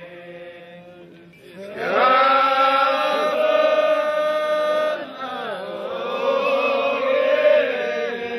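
Ahwach chorus of men chanting in unison: a long held chant swells in about two seconds in, dips briefly around five seconds, then carries on.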